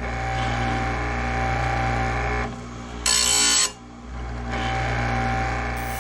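Electric chainsaw-chain grinder running with a steady motor hum. About three seconds in there is one short grinding burst as the wheel is brought down onto a cutter tooth to touch it up.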